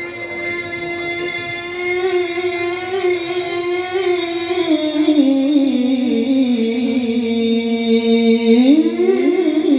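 A single voice chanting long, drawn-out notes with slow ornamented glides, sinking lower about halfway through and climbing back near the end, amplified through a PA sound system.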